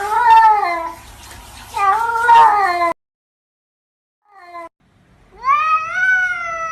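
Domestic cats meowing: two long, wavering meows, a second's pause, then a short meow and a long meow that rises in pitch and holds.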